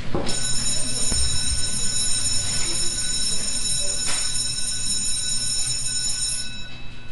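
Electronic intro sound effect: a steady high ringing made of several tones over a low hum. The high ringing stops about six and a half seconds in.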